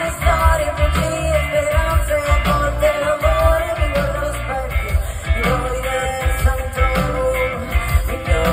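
Live pop music heard from within a concert crowd: a woman sings into a microphone over a band with keyboards and bass.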